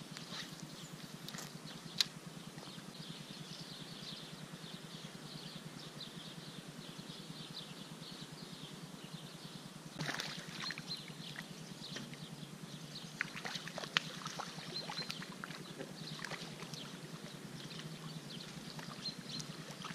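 A hooked trout splashing and thrashing at the water's surface as it is drawn to the landing net, in irregular bursts starting about ten seconds in, over a steady outdoor hiss. A couple of sharp clicks, one early and one near the middle.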